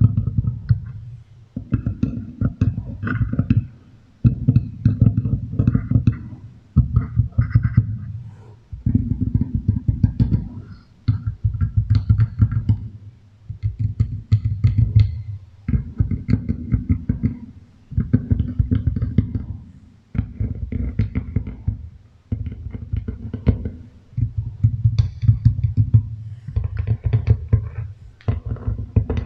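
Beeswax food wrap crinkled and rubbed close to a microphone, run through an echo effect: dense crackling bursts with a heavy, deep low end, about one every two seconds.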